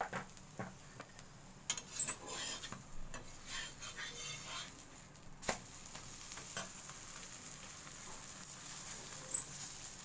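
Paneer paratha sizzling in oil on a flat griddle (tawa), with a steady fine hiss. A metal spatula scrapes and taps against the griddle several times as the paratha is turned over and pressed down to crisp it.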